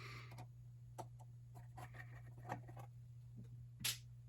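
Faint scattered clicks and light scrapes of hand tools working on the screws of a telescope's metal base cover plate, with one sharper click near the end, over a steady low hum.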